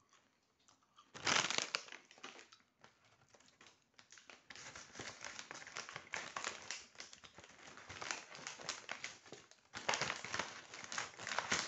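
Loud crinkling and rustling close to the microphone, starting about a second in and going on as a dense crackle, louder again near the end.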